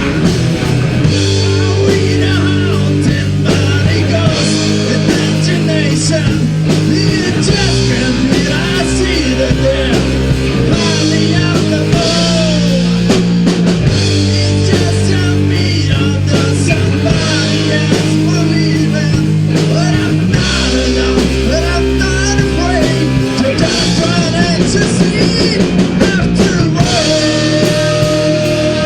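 Heavy metal band playing: distorted electric guitars, bass and drum kit, with a sung or lead line wavering above, changing chords every few seconds.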